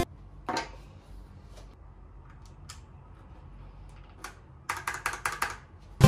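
OEM-profile PBT plastic keycaps clicking as they are handled and fitted onto a mechanical keyboard's switches: a few separate clicks, then a quick run of clicks near the end, over a faint low hum.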